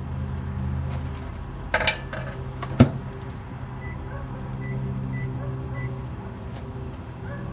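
Microwave oven running with a steady low hum, a lightbulb inside it. About two seconds in comes a short crackling burst, then a single sharp click just under a second later.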